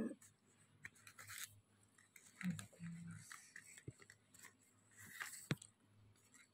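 Faint rustling, scraping and light clicking of young coconut-leaf strips as they are woven and drawn through a ketupat casing, with a sharper tick about five and a half seconds in.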